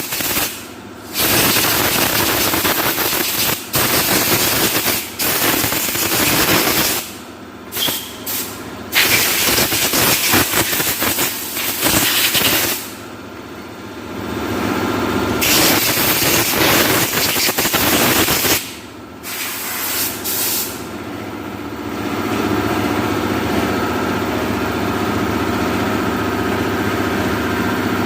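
Compressed-air blow gun blasting carbon-brush dust out of a dismantled integrated starter generator (alternator), in repeated loud hissing bursts that start and stop abruptly. In the last several seconds the blasts stop and a steady mechanical hum remains.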